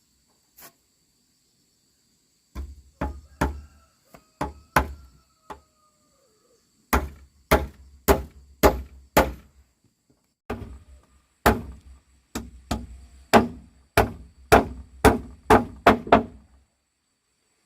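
A hand tool striking wood in three runs of rapid, heavy blows, about two a second, with short pauses between them.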